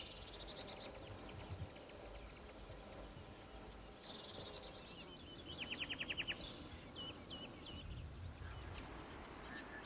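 Faint outdoor ambience of small birds chirping, with a quick run of about ten high notes around six seconds in and a few short rising calls just after.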